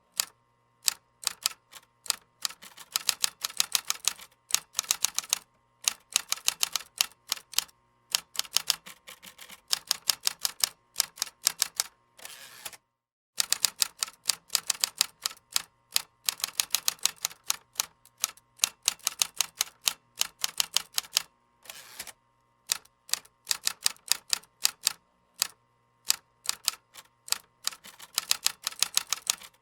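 Typing on a computer keyboard: runs of rapid key clicks in bursts of a few seconds, separated by short pauses, with a brief full stop about 13 seconds in.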